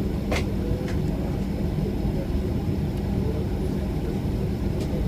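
Steady low rumble of a Boeing 737-800's engines and airflow heard inside the cabin, with a few sharp clicks: one about half a second in, one near a second in, and one near the end.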